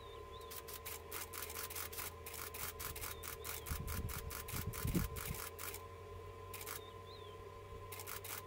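Camera shutters firing in rapid bursts, about seven clicks a second for some three seconds, then two short bursts near the end. A low rumble with a thump comes about five seconds in, over a faint steady hum.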